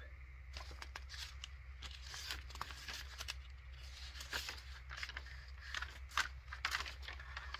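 Sheets of a paper notebook being lifted and turned by hand: a run of dry rustles and short flicks of paper.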